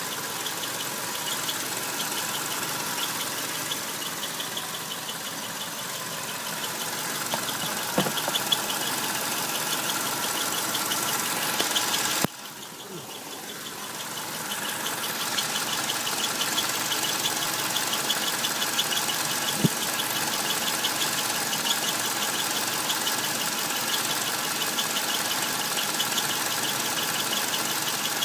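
Subaru EJ251 2.5-litre flat-four idling with a fast, rhythmic high squeak, in a 2001 Outback. The squeak comes from around the transmission flange and stops as soon as throttle is given; the owner has ruled out the belts, tensioners, accessories and the clutch release bearing, and asks whether it could be crankshaft bearing damage. The level drops suddenly about twelve seconds in and builds back over the next few seconds.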